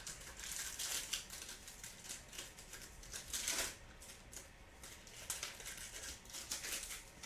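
Crinkling and rustling of trading-card pack wrappers and cards being handled, as cello packs of football cards are opened and the cards pulled out. The rustles come in irregular bursts, loudest about three and a half seconds in.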